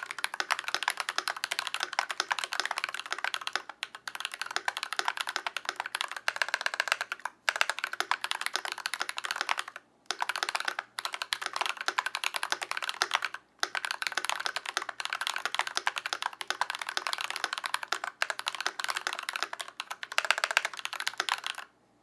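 Fast typing on a Glorious GMMK Pro mechanical keyboard with a brass plate, lubed Glorious Panda tactile switches and PBT keycaps: a dense run of key clacks broken by a few brief pauses, stopping suddenly near the end.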